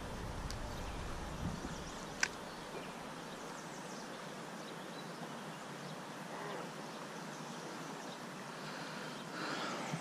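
Faint, steady outdoor background hiss beside a flowing trout stream, with a single sharp click about two seconds in.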